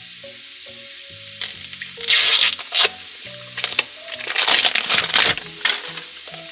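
Plastic toy packaging crinkling and rustling in irregular bursts as a small surprise bottle's wrapped accessories are unwrapped by hand, over light background music.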